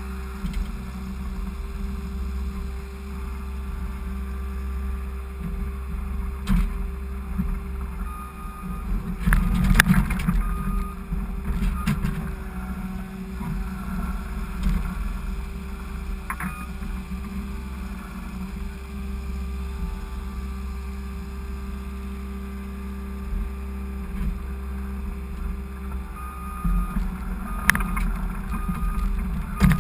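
Skid steer engine running steadily under load, with a couple of sharp metal knocks from the plow about a third of the way in and near the end.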